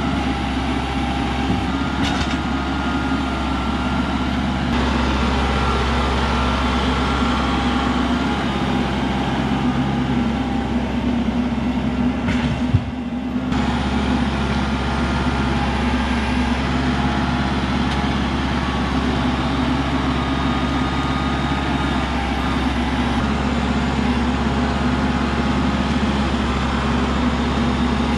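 Kubota compact tractor's diesel engine running steadily as the tractor drives and works its front loader with pallet forks. About halfway through the sound briefly dips, with one sharp click.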